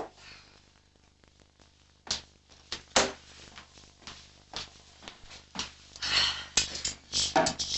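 Kitchen refrigerator and cupboard doors opening and shutting, with a run of separate knocks and clicks and then a busier clatter of things being handled near the end.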